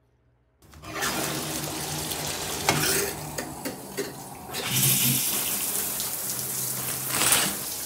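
Shower running: water spraying from the shower head onto the tiled stall as a steady hiss that starts suddenly about half a second in and turns brighter about halfway through.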